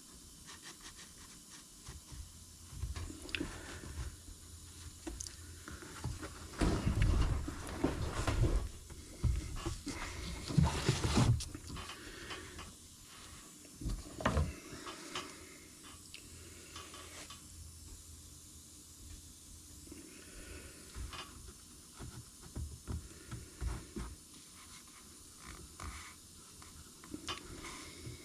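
Handling noises from work on a part: scattered clicks and taps with rubbing, and two louder, rougher stretches about a quarter and two-fifths of the way through.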